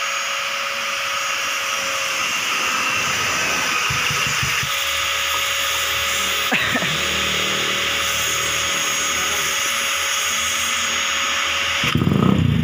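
Suzuki Satria FU motorcycle engine being cranked without catching, a steady mechanical whir. Near the end the engine fires and begins running much louder.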